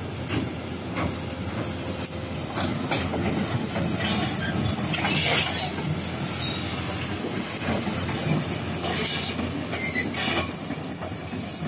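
Sany SY235C crawler excavator on the move: its diesel engine running while the steel tracks clank and squeal, with short high squeals standing out a few times.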